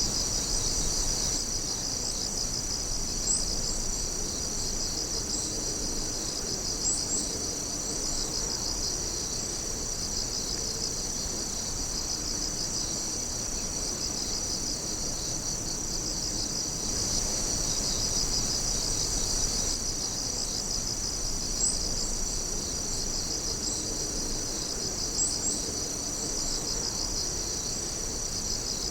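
A chorus of night insects: many overlapping high-pitched trilling and pulsing calls, steady throughout, with a few brief louder chirps standing out now and then.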